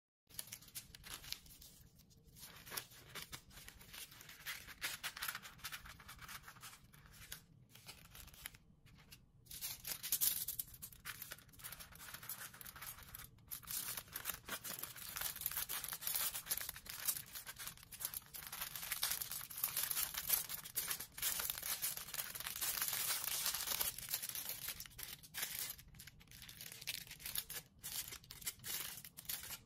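Aluminium foil crinkling and rustling as hands fold and roll it into cone shapes, an irregular run of crackles that grows louder about ten seconds in.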